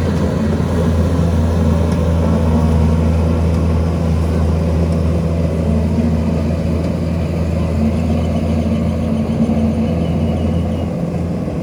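An engine running steadily at a constant speed, a low, even hum with no revving.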